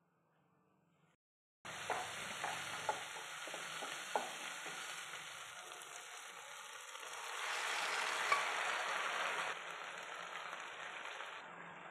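Near silence at first, then about a second and a half in a pan of hot tempering starts sizzling as cooked cabbage is tipped in, with a few metal clinks early on. The sizzle swells louder around the middle and then eases.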